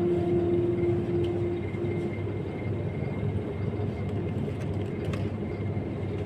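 Guitar background music fades out in the first couple of seconds, leaving a steady low rumbling background noise with a faint high whine and a few light clicks.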